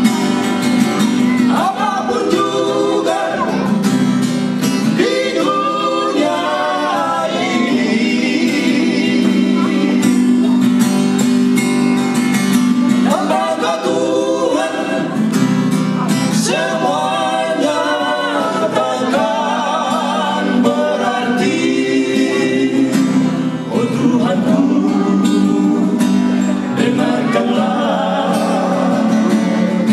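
Live performance of a Batak song: male voices singing, accompanied by two strummed acoustic guitars.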